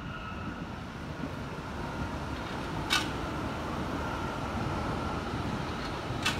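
Red electric multiple-unit train running across an elevated rail bridge: a steady rumble with a faint high whine, growing a little louder as it nears. Two sharp clicks cut through, about three seconds apart.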